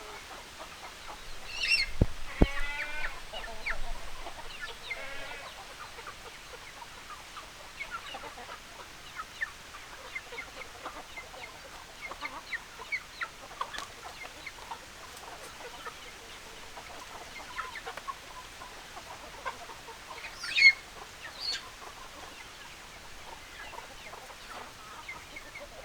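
Chickens clucking, with a longer call in the first few seconds, scattered short clucks, and a sharp loud call about 20 seconds in.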